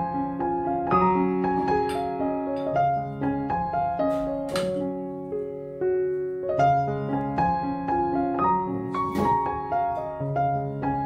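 Background music: a gentle solo piano piece of sustained notes, with two short hissing swishes about four and nine seconds in.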